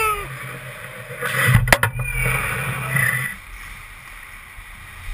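Ice hockey play on a rink: skates scraping the ice, with a few sharp clacks of stick on puck about one and a half to two seconds in. It is quieter after about three and a half seconds.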